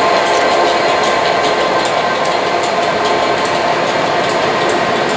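A train running, a loud, steady mechanical noise with a faint hum and many light, irregular clicks.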